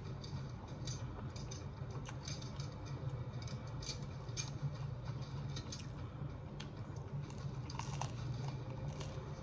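Close-up mouth sounds of someone chewing pizza: irregular wet clicks and smacks, over a steady low background hum.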